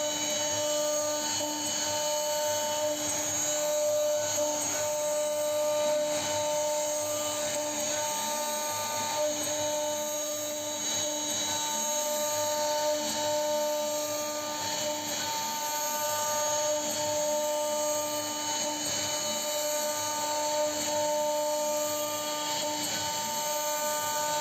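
CNC router spindle running with a steady whine, cutting a jali pattern.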